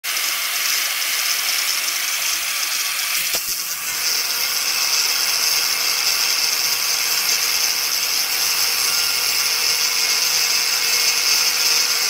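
Angle grinder with a cut-off disc cutting into a steel rebar: a steady, loud, high-pitched whine and grinding. It dips briefly with a click about three seconds in, then bites back in steadily.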